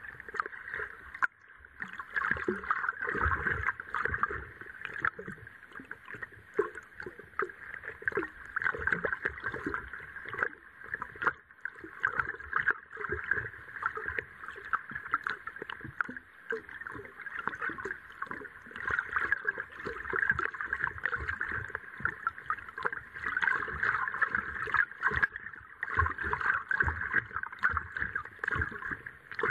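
Underwater sound picked up by an action camera in its waterproof housing resting on a lake bed: a steady muffled hiss of water with irregular crackles and low knocks against the housing.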